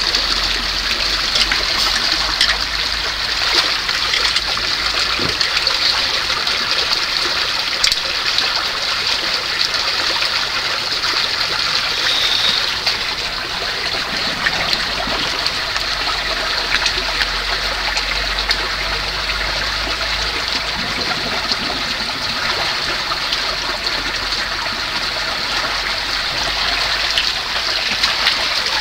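Water of an underground spring running steadily over rocks, with a few short clicks and splashes.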